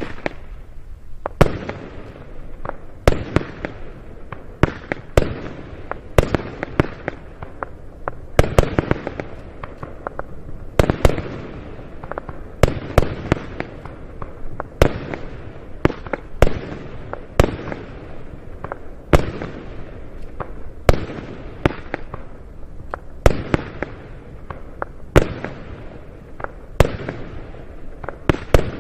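Keller 'Alarmstufe Rot' 25-shot fireworks battery firing its 26 mm shots one after another, a sharp shot every second or two, often two close together, over continuous crackling from the crackle effects.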